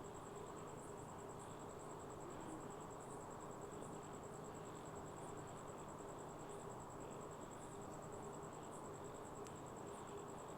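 Crickets trilling steadily: an unbroken, rapidly pulsing high-pitched trill, with faint higher chirps about twice a second, over a low, even background hiss.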